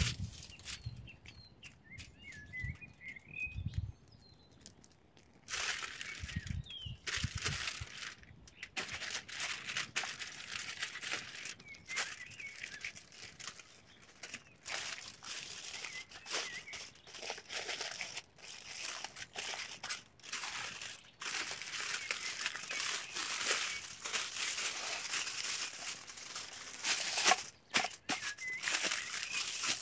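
Aluminum foil crinkling and crackling in irregular bursts as it is handled and folded around a raw chicken leg, starting about five seconds in. Before that a bird chirps a few times.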